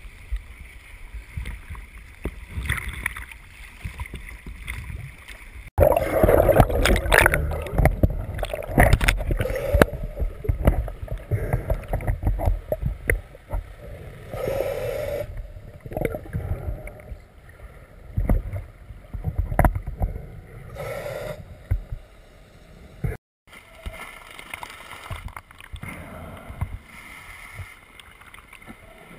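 Sea water sloshing around the camera at the surface for the first few seconds. Then, underwater, a scuba diver breathes through the regulator, and exhaled bubbles rush past in repeated bursts a few seconds apart.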